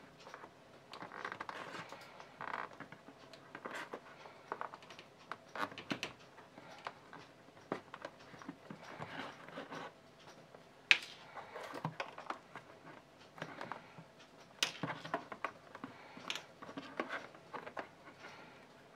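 Hand-work handling sounds of leather craft: irregular rustling, scraping and small clicks, with one sharp click about eleven seconds in.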